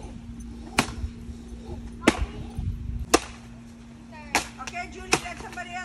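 A stick striking a hanging piñata: five sharp whacks, roughly one a second.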